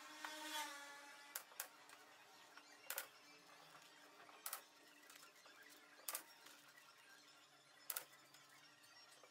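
Pneumatic nail gun firing into a walnut frame: a series of sharp, single shots roughly every one and a half seconds, two in quick succession near the start. A short hiss comes just before the first shot.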